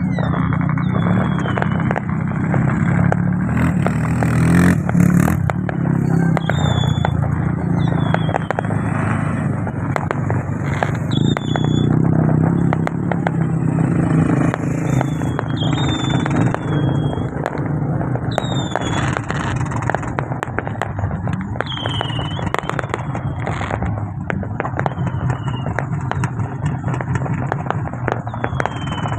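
Vehicle engines running steadily, with scattered clicks and short high squeaks recurring throughout.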